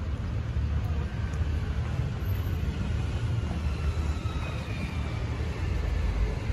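Street traffic noise: an uneven low rumble, with a passing vehicle whose tone falls slowly in pitch through the middle.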